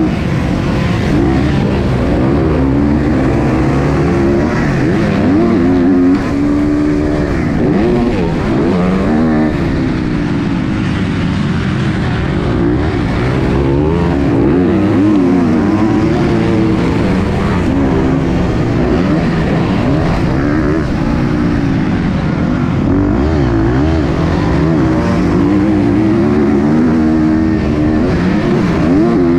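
Four-stroke single-cylinder engine of a 2023 KTM 250 SX-F motocross bike at racing pace, revving up and falling back over and over as the rider goes through the gears and rolls off the throttle.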